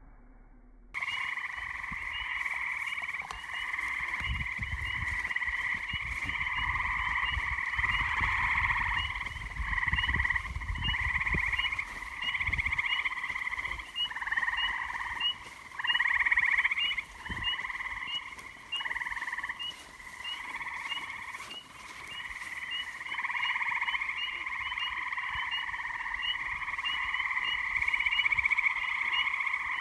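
Chorus of gray tree frogs giving overlapping musical trills, each one or two seconds long, starting abruptly about a second in. Low rumbling noise runs under the first half.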